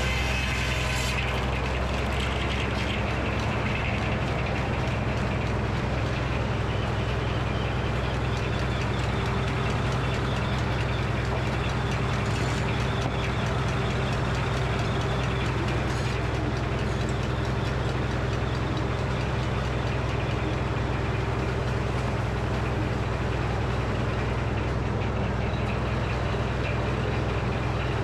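Frick sawmill running steadily: the power unit's low drone with the circular saw blade's whine. The whine climbs in pitch over the first several seconds.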